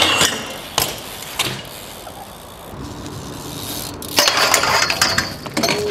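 BMX bike on metal street handrails: a few sharp knocks and metal clinks in the first second and a half, then a louder scraping grind of the bike's steel pegs along a rail about four seconds in.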